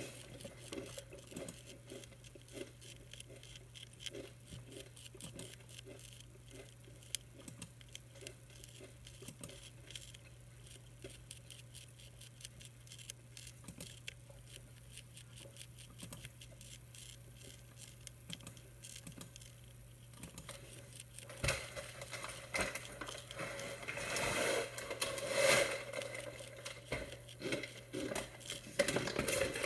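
Monarch caterpillar chewing the edge of a milkweed leaf: a rapid run of tiny crunching clicks that grows denser and louder in the last third.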